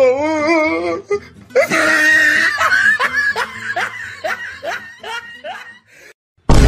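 Laughter sound effect: a wavering laugh, then a long belly laugh of repeated 'ha' syllables that slows and fades toward the end. A sudden, very loud burst of noise cuts in at the very end.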